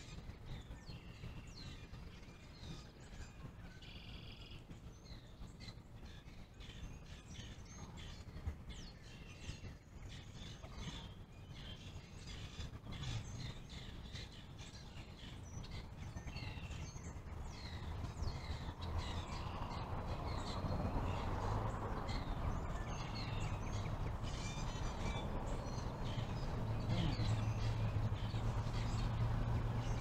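Wild birds chirping and calling over road traffic. From about halfway through, a passing vehicle's rumble grows steadily louder as it approaches, with a low engine hum strongest near the end.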